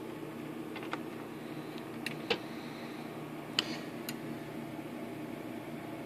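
Technics SL-J33 linear-tracking turntable running its automatic track scan, a steady low mechanical hum with a few light clicks, the sharpest about two and a half and three and a half seconds in.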